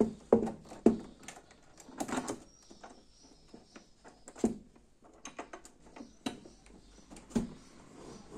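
TCL TV's metal mounting brackets and plastic back knocking and clicking against a metal wall bracket as the set is lifted and hooked on. About a dozen irregular knocks, the loudest in the first two seconds and once more near the middle.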